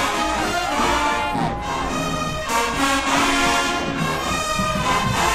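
Marching band playing, loud brass horns carrying the tune, with a few notes bent up and down in the first couple of seconds.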